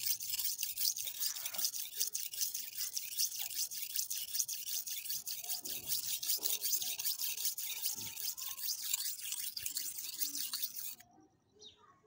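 Knife blade stroked rapidly back and forth on a wet red sharpening stone, a steady hissing scrape of steel on stone that stops abruptly about eleven seconds in. It is the early grinding stage, before a burr has been raised on the edge.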